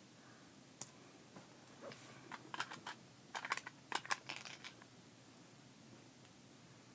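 Faint handling of small plastic packaging: a single click about a second in, then a cluster of crinkles and light clicks for about three seconds.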